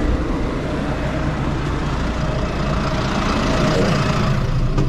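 Tractor engine running steadily with the harrow seeder hitched on, a dense mechanical noise that swells slightly about three seconds in.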